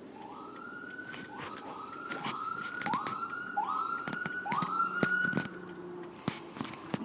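A siren sounding a run of six rising whoops, each sweeping up in pitch and holding briefly, one after another for about five seconds before stopping.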